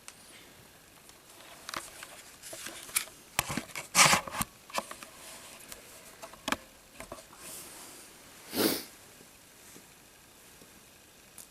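Small plastic clicks and rustles from handling and posing an action figure, busiest in the first half, with a short louder breathy rush a little before the end.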